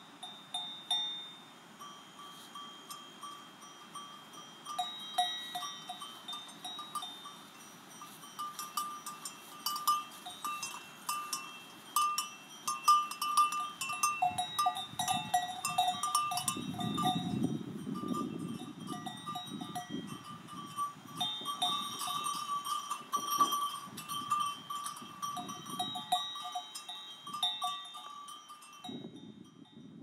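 Cowbells on calves' neck straps clanking and ringing irregularly as the calves move about, with a louder low rustle a little past halfway.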